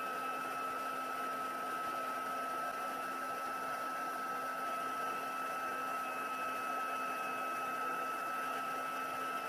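Stampin' Up! heat embossing tool running steadily: a fan whir with a constant high whine, blowing hot air on the back of the cardstock to keep it from curling.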